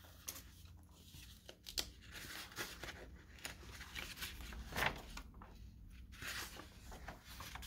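Faint rustling and crinkling of paper, with a few soft clicks scattered through.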